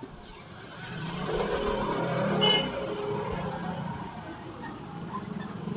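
A motor vehicle passing close by, its sound swelling and then easing off, with a brief high-pitched squeal at its loudest point.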